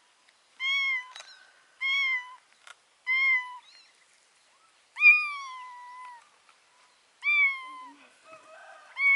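Very young tabby kitten meowing over and over in thin, high calls about once a second, with one longer drawn-out meow about five seconds in. These are the cries of a kitten separated from its mother.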